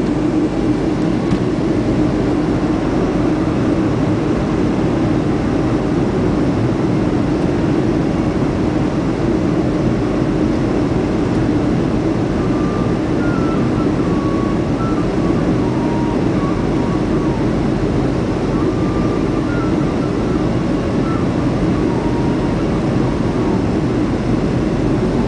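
Steady cabin noise inside a Boeing 737-400 in flight: the constant drone of its CFM56-3 turbofan engines and airflow over the fuselage, an even rushing noise strongest low in pitch.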